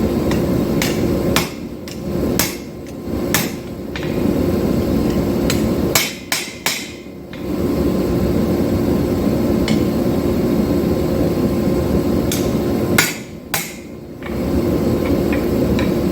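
Hammer blows on a 5160 steel knife blank at the anvil: scattered single strikes and quick groups of two or three, over a steady low roar.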